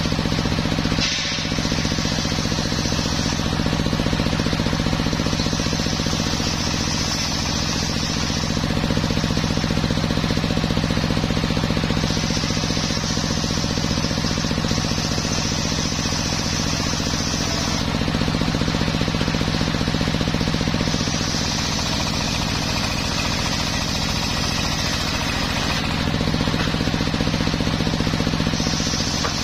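Homemade table-mounted circular saw ripping teak planks. The machine hums steadily throughout, and several stretches of harsher, higher cutting noise, each a few seconds long, come and go as the wood is pushed through the blade.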